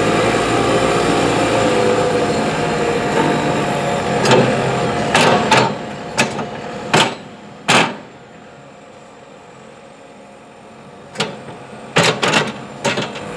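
Diesel engine of a JCB 527-55 telescopic forklift running steadily, then dying away about halfway through. Several sharp clunks and knocks follow in two groups, about five over the middle of the clip and another quick cluster near the end.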